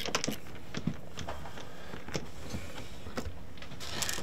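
Scattered light clicks and handling noises over a steady low hum, with a short rustle near the end.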